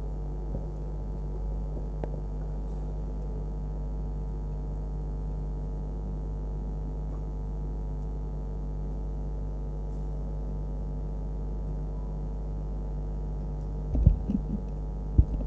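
Steady electrical mains hum, with a couple of short low thumps near the end.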